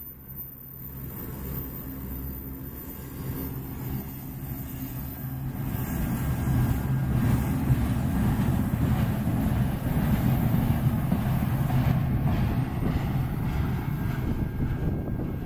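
Freight cars rolling past on the track: a steady rumble of steel wheels on rail that grows louder about six seconds in.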